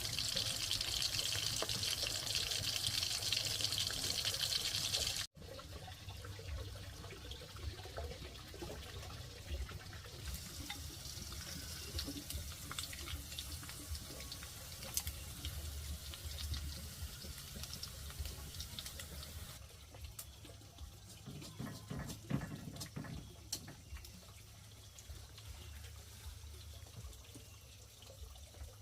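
Water running steadily for about five seconds, then cut off abruptly. After that, quieter trickling and splashing with scattered small clicks and knocks.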